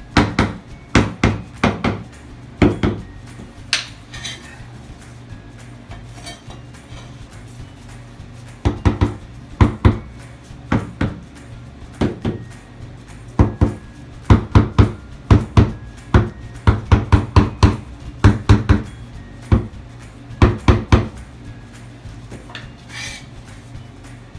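Bottom-row ceramic wall tiles being tapped into tile adhesive: sharp knocks in quick clusters of a few taps a second, with a pause of a few seconds early on.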